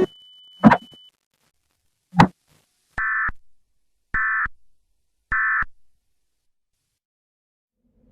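Two sharp clicks, then three short, identical buzzing bursts of EAS SAME digital data about a second apart: the end-of-message code that closes an Emergency Alert System activation.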